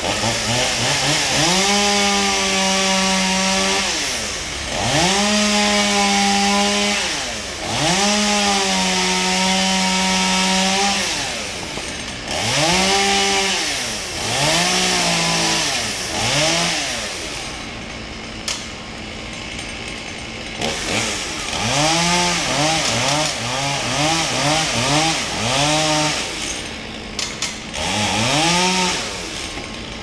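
Two-stroke chainsaw revving up to full throttle and held there for two to three seconds at a time, several times, dropping back to idle between, as in cutting wood. Later it gives a quick run of short throttle blips, then one more rev near the end.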